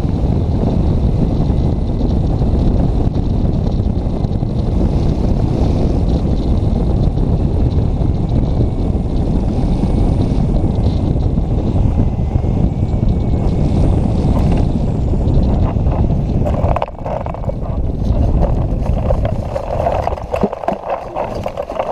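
Airflow buffeting the microphone of a hang glider in flight, a loud, steady rush. About three-quarters of the way through it dies down and turns into scrappy rustling with scattered knocks as the glider slows and touches down on grass.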